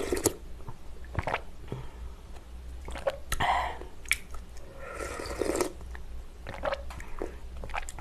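Close-up slurping and sipping of spicy seafood jjamppong broth from a plastic ladle, in two spells about three and five seconds in, with small mouth clicks and swallows between.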